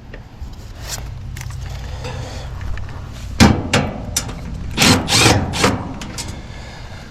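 Sharp knocks and clatters of sheet-metal panels and tools as a heat pump's outdoor unit is opened up, bunched together about halfway through, over a low steady hum in the first few seconds.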